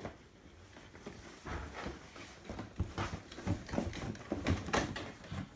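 Plastic vacuum-cleaner accessories and their packaging being handled: a run of irregular clicks, knocks and rustling that gets busier after about a second and a half.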